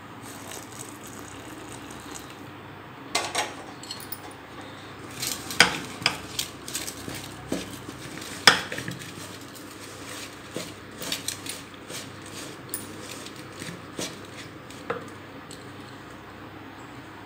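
Ladle handle stirring hot-water rice-flour dough in a stainless steel bowl, scraping and knocking irregularly against the metal. The loudest knocks come about three, five and a half and eight and a half seconds in.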